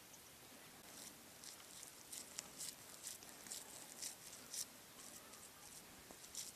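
Hands patting and pressing wet yak dung onto a wall of stacked dung: faint, irregular soft pats and scratchy crackles.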